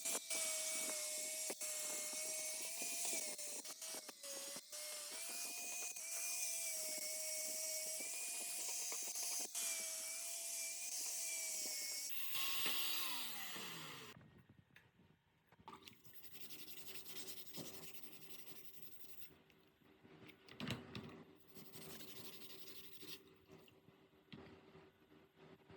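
A small high-speed power tool runs with a steady whine and a rasping hiss as it works against a part, then is switched off about twelve seconds in and winds down. Quieter scrapes and clicks of handling follow.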